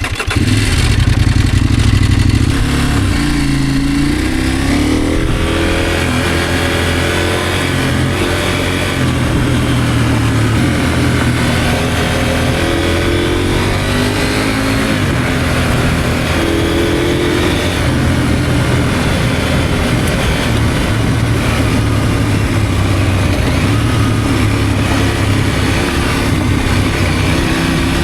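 Motorcycle engine running under way, its revs rising and falling again and again as it accelerates and eases off, over a steady rush of wind and road noise.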